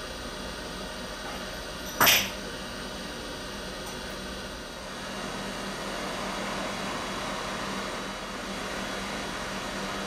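Steady fan-like hiss of a hot-air rework station blowing, over a low steady hum. There is a single sharp click about two seconds in, and the air noise swells slightly from about five seconds.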